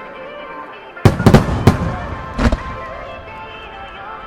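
Aerial firework shells bursting in a starmine barrage: a quick cluster of about four sharp booms about a second in, then one more about a second and a half later, over steady background music.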